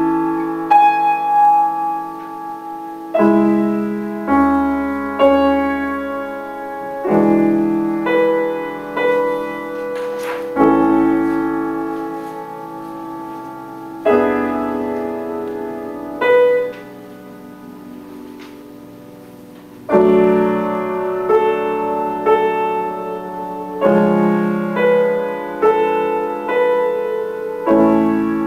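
Grand piano played solo, a piece moving in sustained chords struck about once a second. Roughly two-thirds of the way through, a chord is held and left to die away for a few seconds before the playing picks up again.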